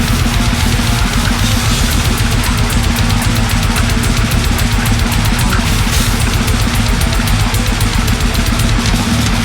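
Brutal death metal: heavily distorted guitars and bass over fast, steady drumming.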